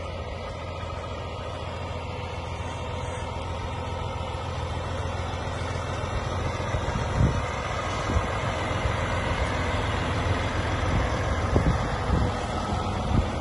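Diesel engine of a cab-over road-train prime mover pulling away and passing close by, growing steadily louder. Its trailers then roll past with a few sharp knocks and rattles from about seven seconds in.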